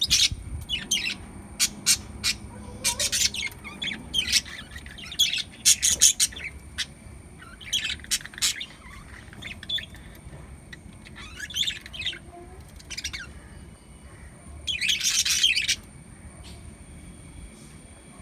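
Small pet parrots chirping and squawking in short, scattered calls, with a longer, louder bout of chatter about three-quarters of the way in. A faint, steady, high-pitched tone runs underneath.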